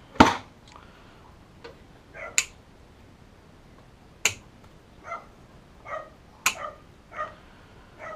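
Cable-tie tails being snipped off with cutters: four sharp clicks about two seconds apart, the first the loudest. A dog barks faintly in the background between the snips.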